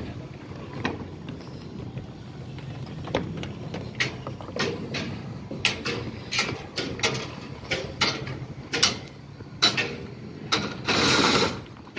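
Irregular sharp metallic knocks and clanks of a steel bar worked against rebar beam cages, growing more frequent, with a harsher noisy stretch of about a second near the end.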